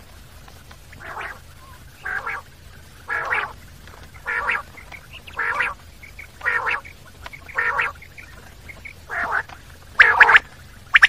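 Common quail calling: a series of short, harsh notes about one a second, each under half a second long. A louder, sharper call comes near the end.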